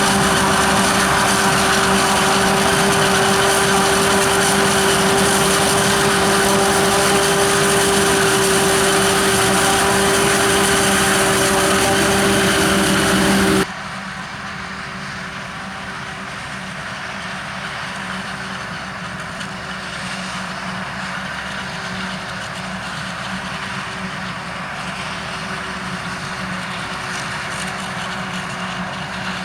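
Heavy farm machinery running steadily at maize silage harvest, a constant engine note with a steady whine over it. About fourteen seconds in, the sound drops abruptly to a quieter level and carries on steadily.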